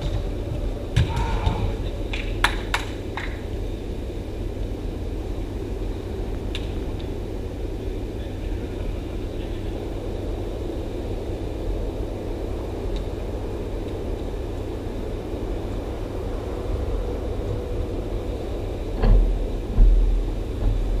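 Steady low rumble of an indoor football hall, with a few sharp knocks about two to three seconds in and heavier low thumps near the end, from the game: a ball being kicked and striking the cage.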